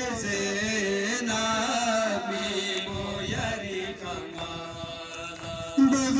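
Male voices chanting a Shia mourning lament (nauha) in long, drawn-out notes, growing suddenly louder on a higher note near the end.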